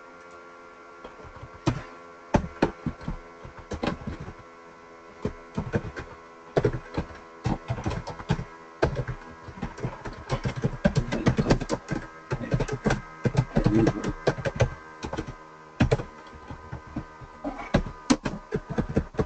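Computer keyboard typing: irregular runs of key clicks with short pauses, densest in the middle, over a steady electrical hum.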